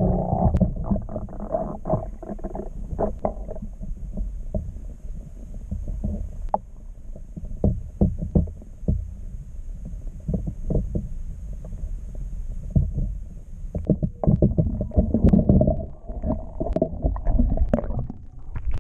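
Muffled underwater sound in a swimming pool, picked up by a submerged camera: a low rumble of moving water with scattered knocks and clicks. It swells into louder churning from about fourteen seconds in.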